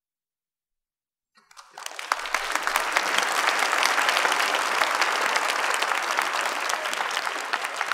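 Audience applauding: silence for the first second and a half, then clapping starts and quickly builds to steady applause.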